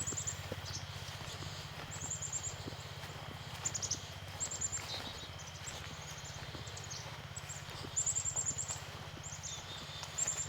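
Birds chirping: short, very high-pitched trills of quick falling notes, repeated every second or two, over a steady low hum.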